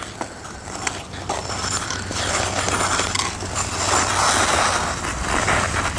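Ice skate blades scraping and gliding across ice, with small clicks, the scraping growing louder from about two seconds in.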